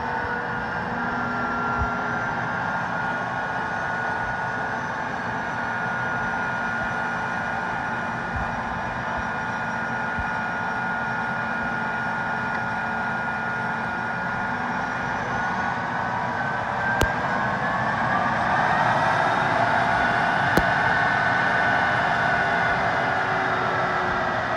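M1A1 Abrams tank's AGT1500 gas turbine engine whining steadily as the tank creeps over sand. About sixteen seconds in, the whine rises in pitch and gets louder as the turbine spools up, and two brief sharp clicks sound over it.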